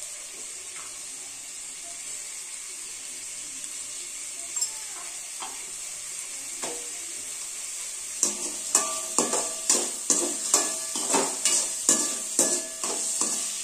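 Onions and tomato sizzling as they sauté in oil in an aluminium kadai, a steady hiss. About eight seconds in, a perforated steel ladle starts stirring and scraping against the pan, clinking about three times a second.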